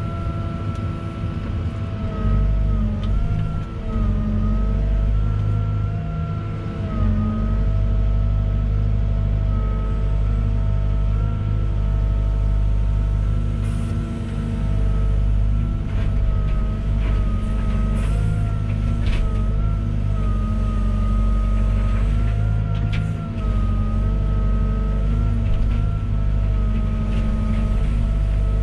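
Volvo EWR150E wheeled excavator at work: its diesel engine running steadily, with a higher whine that wavers slightly up and down, and a few sharp clicks now and then.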